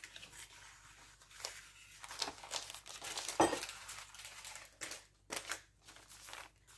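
Baking paper being peeled off the underside of a sponge cake layer: irregular soft rustling and crinkling of the paper, coming away easily.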